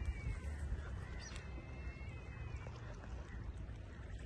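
Faint outdoor harbour background: a steady low rumble with a few faint, thin, high calls.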